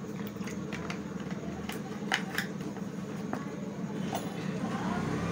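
A spoon stirring turmeric into water in a plastic bowl, with a handful of light clicks where the spoon knocks against the bowl, over a steady low background hum.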